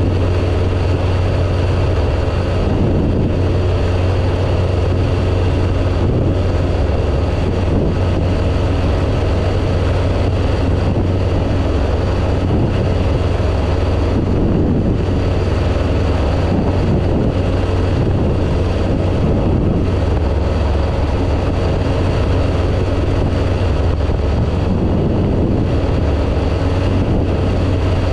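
Phantom ultralight aircraft's engine and propeller running steadily in powered flight, a constant low drone with wind rush over it.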